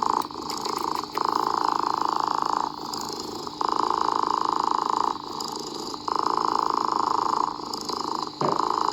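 A cat purring. The purr swells louder and quieter in a regular cycle about every two and a half seconds, as the cat breathes in and out.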